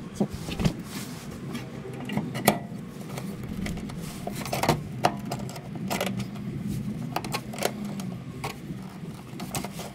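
Scattered metallic clinks and knocks over a low steady hum.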